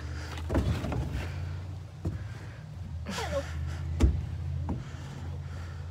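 Low rumble of wind and handling on a handheld phone microphone, with a few sharp knocks and a short breathy gasp with a falling pitch about three seconds in.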